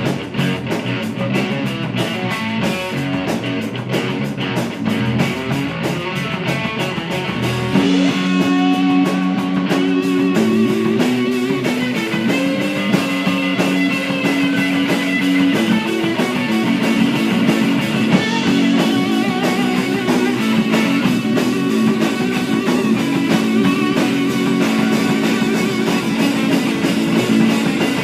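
Rock music with guitar, growing louder and fuller about eight seconds in.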